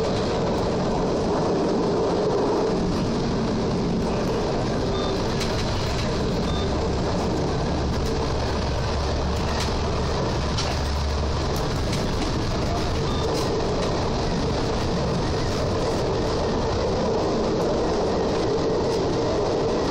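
SWEG NE81 railcar running along the track, heard from the driving cab of its control car: a steady rumble of wheels on rail with a constant drone. A deeper hum swells for a few seconds midway, and faint light clicks come now and then.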